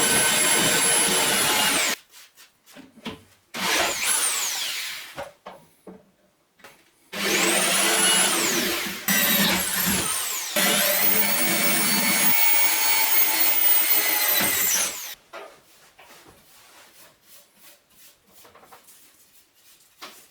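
An electric power tool runs at full speed three times: a short run, a second short run, then a long one of about eight seconds. After each, its whine falls away as it spins down. Light scattered knocks and clatter follow near the end.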